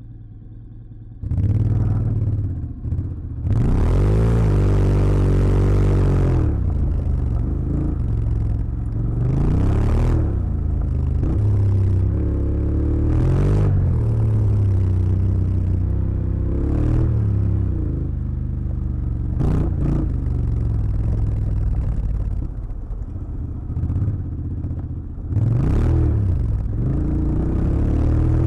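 Honda X-ADV 750's parallel-twin engine on the move over a gravel track, its pitch rising and falling several times as the throttle is opened and eased. Tyres crunch on loose gravel underneath.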